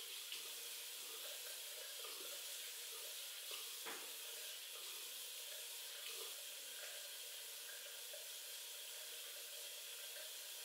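Bathroom sink faucet running steadily into the basin as a face is washed, with a single faint knock about four seconds in.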